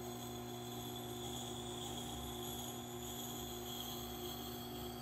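Tormek T8 wet sharpener running with a steady motor hum while a hatchet head is held in the axe jig against its turning grindstone, grinding a new edge.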